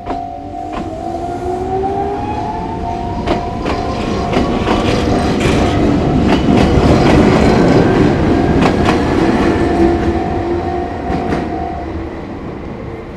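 A Chichibu Railway electric train passes over the level crossing, its motor whine rising in pitch as it pulls away and its wheels clacking over the rail joints, loudest about halfway through. The crossing's warning bell rings steadily and stops about twelve seconds in.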